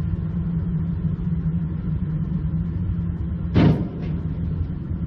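Steady low rumble of a vehicle driving on a motorway, with one sudden short bang about three and a half seconds in.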